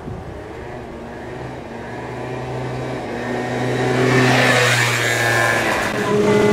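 Farm tractor pulling a loaded silage wagon approaching along the road and passing close by: its engine drone and tyre noise grow louder to a peak about four to five seconds in, the pitch dropping as it goes past. Near the end the sound changes abruptly to a different engine.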